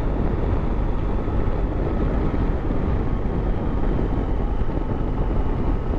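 Motorcycle being ridden: steady engine rumble mixed with wind noise.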